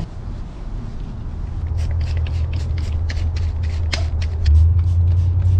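Shop rag rubbed quickly back and forth over a greasy bicycle crank arm and spindle, short rasping strokes about four a second, wiping off built-up gunk. A low rumble underneath grows louder about four and a half seconds in.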